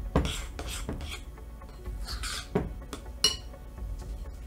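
A spoon stirring thick, sticky dumpling dough in a mixing bowl, scraping through the dough and knocking against the bowl's side in a few short clinks, the last one ringing briefly about three seconds in.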